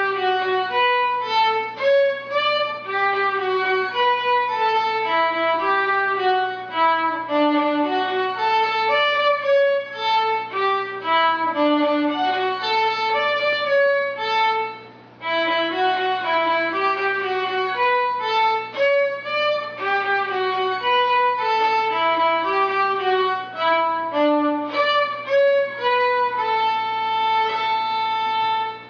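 Solo violin playing a melody of short bowed notes in stepping runs, with a brief break about halfway and one long held note near the end.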